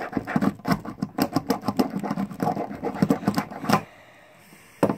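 Rapid metallic scraping and clicking as a tool is worked against a Master Lock combination padlock to force it open. The scraping stops about four seconds in, with one last sharp click near the end.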